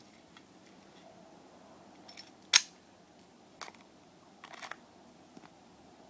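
Sharp metallic clicks and clacks of a Glock 17 pistol being handled: one loud clack about two and a half seconds in, then single clicks and a quick run of clicks a couple of seconds later.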